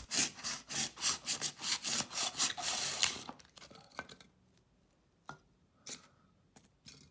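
A thin blade sawing back and forth through a block of Woodland Scenics white foam riser, a rasping scrape at about five strokes a second, stopping a little over three seconds in. A few faint clicks and taps follow as the cut pieces are handled.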